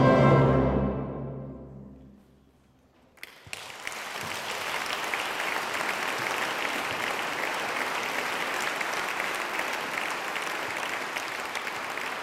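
The final chord of a choir and orchestra dying away over about two seconds, a brief silence, then the audience starts applauding about three seconds in and keeps clapping steadily.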